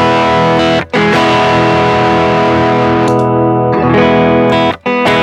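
Electric guitar playing sustained, distorted chords through a Ross compressor reissue, Tube Screamer, Stone Deaf PDF-2 and Fulltone Fat-Boost pedal chain. The chords are cut off briefly about a second in and again near the end, where they change.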